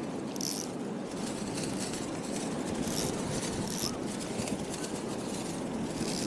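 Strong wind blowing across the microphone as a steady rushing noise, with four short high hisses.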